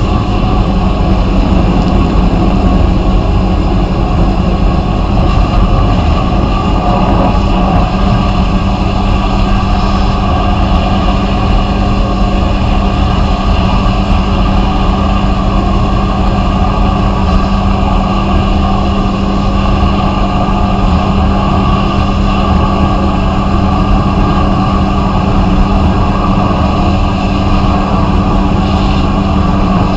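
Vapor blasting equipment running steadily: a constant machine hum under an unbroken hiss of the blast spray.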